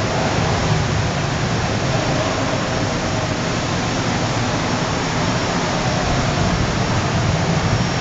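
Steady machine noise of a running Vitronics-Soltec DeltaWave 6622 lead-free wave soldering machine, opened up: an even hiss with a low hum under it.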